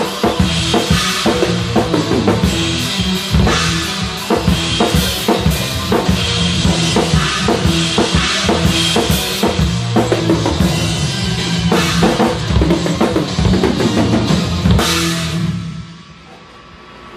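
Rock drum kit played hard with dense kick, snare and cymbal hits over a sustained band backing. The playing stops near the end and the sound drops to a fading ring-out.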